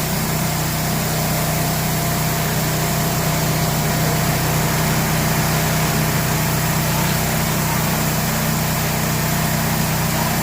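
A 4400 psi Benchmark gas pressure washer's engine runs steadily under the even hiss of water jetting from a 24-inch Vevor surface cleaner.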